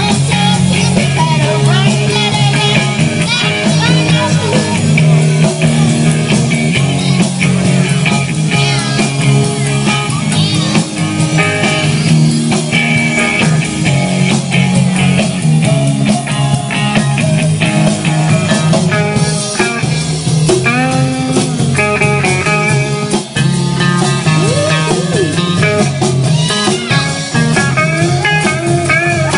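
Live rock band playing an instrumental passage: electric guitar with bent, sliding notes over a steady bass line and drum kit.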